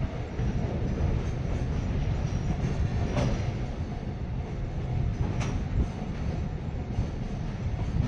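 A freight train's Koki container wagons rolling past: a steady low rumble of wheels on rail, with a sharp clack about three seconds in and another past five seconds.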